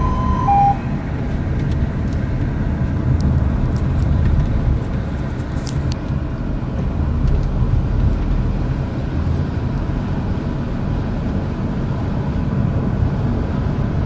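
Steady rumble of engine and road noise heard from inside a moving vehicle. At the very start a fire-engine siren sounds its last two-tone hi-lo notes and cuts off under a second in.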